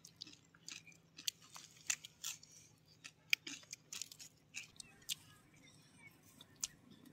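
Faint, scattered crunches and clicks of people eating a singju salad of raw cabbage and chopped greens, picking it from a metal plate with their fingers and chewing.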